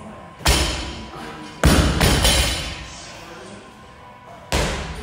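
Medicine ball thudding during wall-ball shots, as it hits the target and is caught: three heavy thuds, about half a second in, just under two seconds in, and near the end, each dying away slowly.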